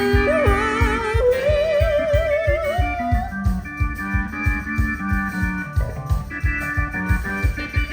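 Live rock band playing an instrumental passage: a lead electric guitar line climbs and is held with a wide vibrato for about three seconds over a steady, fast drum beat, after which the rest of the band carries on with sustained chords.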